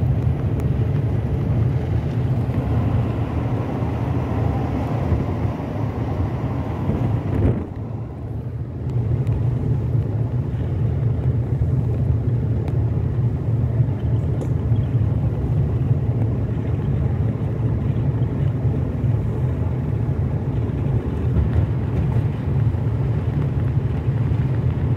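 Steady engine and road noise of a Suzuki Vitara driving, heard from inside the cabin as a low rumble; the noise dips briefly about a third of the way through.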